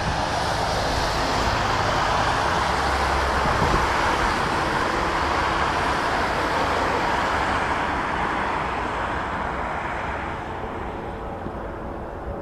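Boeing 737 airliner on final approach, its twin jet engines giving a steady rushing whine. The noise grows somewhat quieter over the last few seconds as the plane nears the runway.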